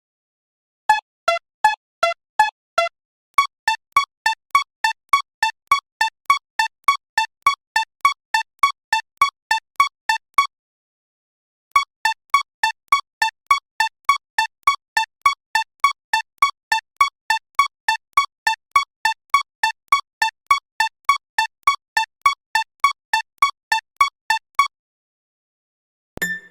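Railroad crossing alarm bell ringing in a steady run of short, bright dings, the 'kan-kan' of a Japanese level crossing, about two a second at first and then about three a second. It pauses briefly about ten seconds in and stops near the end.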